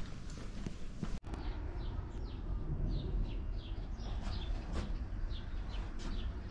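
Small birds chirping, short falling high-pitched calls coming a few times a second, over a steady low rumble.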